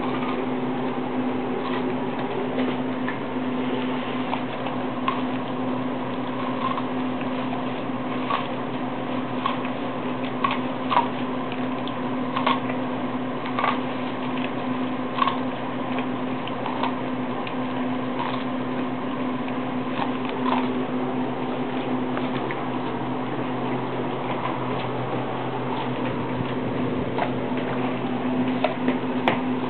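German shorthaired pointer biting and chewing kernels off a corn cob held in a hand: irregular crunching clicks, about one a second, over a steady low hum.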